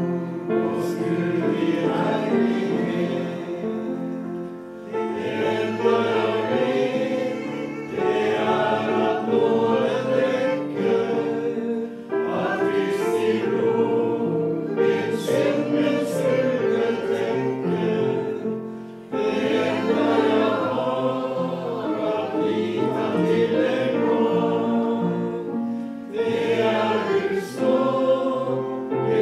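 A hymn sung by many voices with piano accompaniment, phrase by phrase, with short breaks between the lines.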